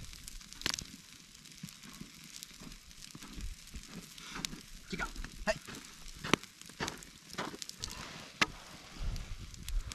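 Wood campfire crackling with scattered sharp pops, a trout on the grill grate above sizzling faintly.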